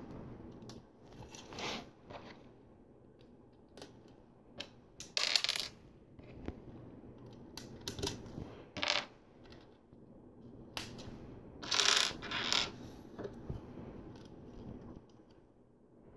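Small plastic LEGO pieces clicking and clattering as they are handled and pressed together, with a few short rattling bursts of loose pieces being moved about.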